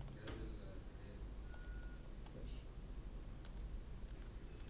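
Computer mouse clicking: a handful of sharp clicks, several in quick pairs like double-clicks, over a low steady room hum.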